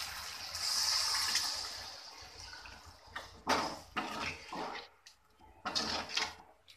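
Coconut milk poured in a stream into a hot pan of frying masala, hissing for about two seconds. Then a metal slotted skimmer stirs and scrapes through the liquid in the metal pan in short strokes, about two a second.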